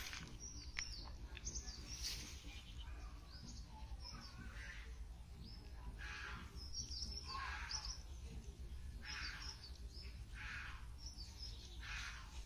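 Small birds chirping on and off, over soft swishes of water as a cast net is drawn in through the shallows.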